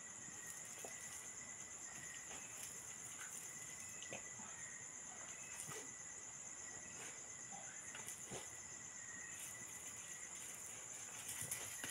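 Night insect chorus: crickets trilling steadily in a high, finely pulsing band, with a second thin, steady tone underneath. Faint scattered clicks and scuffs occur throughout, a little louder near the end.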